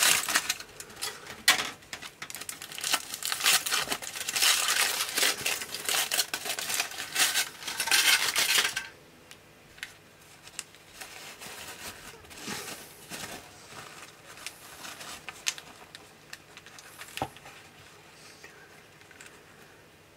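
A packet of sweets being handled: busy crinkling of plastic wrapping with small clattering clicks for about the first nine seconds, then only occasional faint rustles and clicks.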